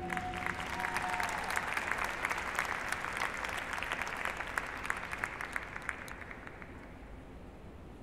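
Audience applauding as the band's last held chord dies away at the start; the clapping fades out over about six seconds.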